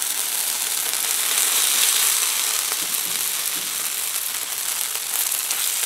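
Johnnycakes frying in hot oil on a cast iron griddle: a steady, even sizzle.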